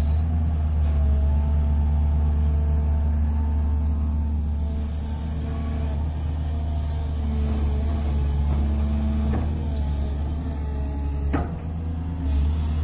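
Hydraulic excavator's diesel engine running steadily with a deep drone, while higher tones waver up and down in pitch as it works. There is a sharp click about eleven seconds in.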